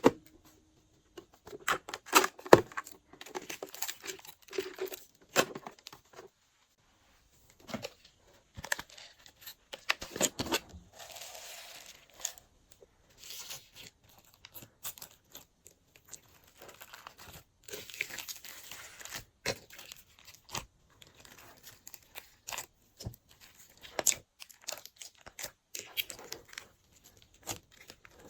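Glossy slime being mixed, stretched and squished by hand, making irregular sticky clicks and pops with a few longer crackling stretches.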